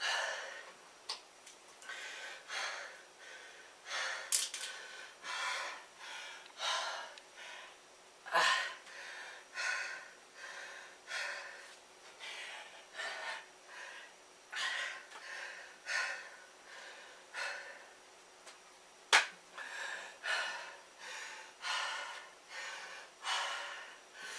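A man breathing hard, panting in and out about once a second as he recovers from a set of slow typewriter push-ups. Two sharp knocks stand out, about eight seconds in and again near nineteen seconds.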